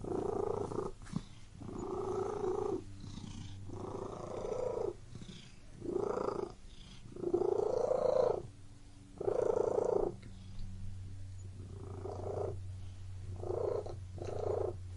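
Domestic cat purring in steady cycles, a louder swell roughly every one and a half to two seconds with each breath, the swells growing softer and shorter near the end.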